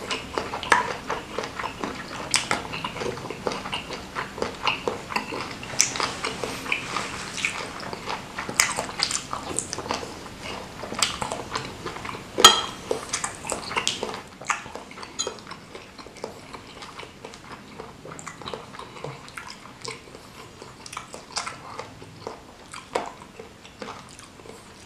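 Close-up chewing and wet mouth sounds of someone eating bakso meatballs in spicy soup, with a wooden spoon and fork knocking in a ceramic bowl. The smacks are frequent early on, one sharp knock comes about halfway, and the sounds thin out and grow quieter in the second half.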